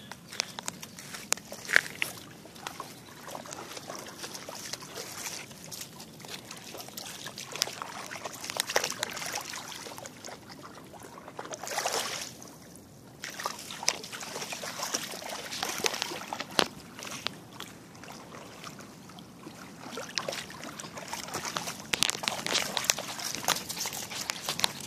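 Shallow river water sloshing and lapping against a rocky shore, with scattered splashes and clicks as dogs wade at the water's edge.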